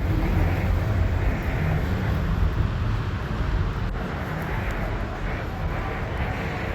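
A car engine running with a steady low rumble amid outdoor background noise, with a single click about four seconds in.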